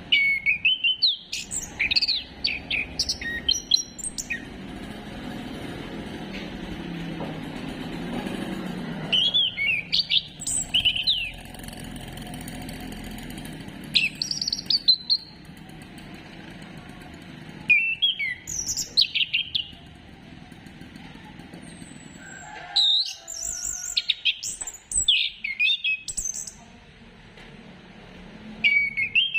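Orange-headed thrush singing in short bursts of quick, varied whistled phrases every few seconds, over steady low background noise.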